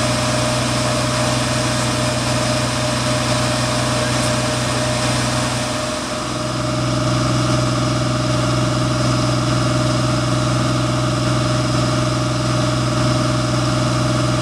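Fire engine's engine running steadily, a deep hum with a thin steady whine over it; about six seconds in it dips briefly, then picks back up.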